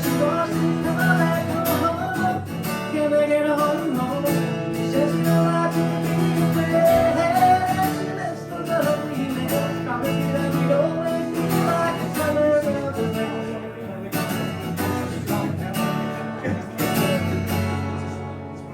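Acoustic guitar strummed under a sung melody, a solo song performance. The playing fades out over the last couple of seconds as the song ends.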